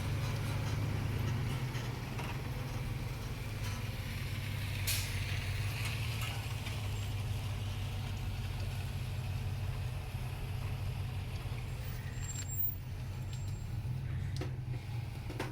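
City street traffic: a steady low rumble of truck and bus engines, with a short hiss about five seconds in.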